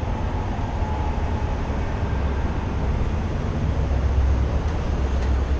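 Semi-truck diesel engine idling: a steady low rumble.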